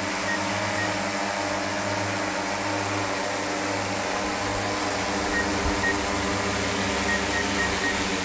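Multirotor agricultural spraying drone hovering close by, its propellers making a steady hum of several mixed pitches.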